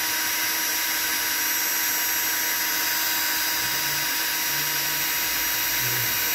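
Electric drill running at a steady speed, its twist bit boring a hole through a metal chain-link fence rail cap, with a steady whine.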